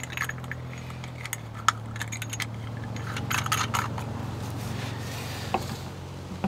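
Small clicks and light rattling as the plastic parts and screws of a camera wall mount are handled, in scattered bunches, over a steady low hum.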